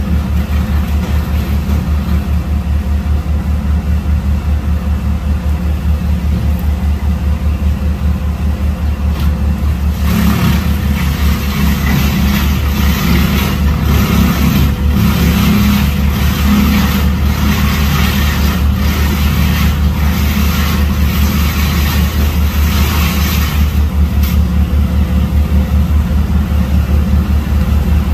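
An engine running steadily with a rapid low throb. From about ten seconds in until near the end, a louder rushing noise rises over it.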